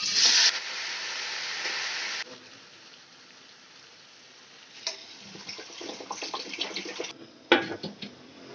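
Kitchen cooking sounds: a loud hiss, like running water or oil sizzling, cuts in suddenly and stops after about two seconds. It is followed by quieter scattered crackles and clicks, then a single sharp knock near the end.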